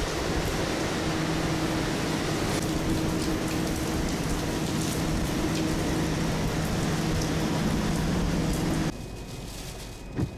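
Hurricane-force wind and heavy rain, with the steady low hum of a diesel standby generator from about a second in. About nine seconds in the sound cuts to a quieter, muffled storm heard from inside a car, with a thump near the end.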